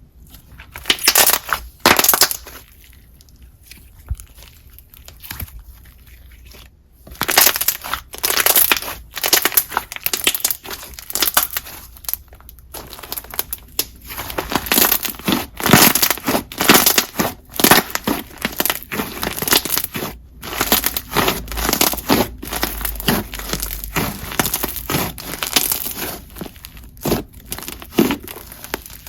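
A float slime with a clear icy top layer being squeezed and mixed by hand, giving crackly, crunchy squishes. There are two squeezes near the start, a pause of a few seconds, then closely repeated irregular squishing.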